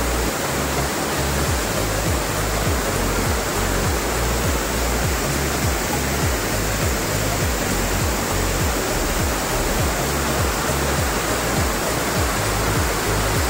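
Elephant Falls' third tier pouring over rock: a steady, unbroken rush of white water.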